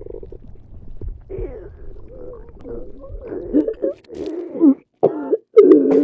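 Throat and stomach sound effects of regurgitation: wet gurgling heaves that grow louder, ending in loud retching gulps near the end.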